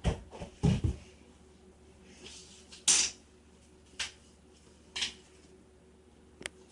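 Handling noises from puppets and props being moved: two low bumps, then three short rustling scrapes about a second apart, and a sharp click near the end.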